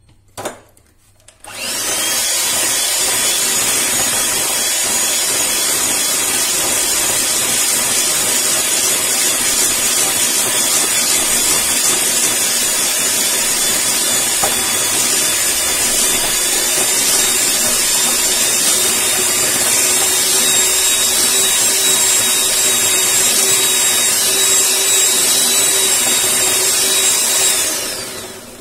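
Bajaj Majesty electric hand mixer running, its beaters creaming butter and icing sugar. After a click, the motor's steady high whine starts about a second and a half in and runs evenly until it winds down near the end.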